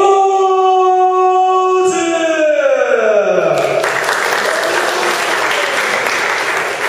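A voice holds one long drawn-out call for about two seconds, then slides down in pitch, and the crowd breaks into applause and cheering about halfway through.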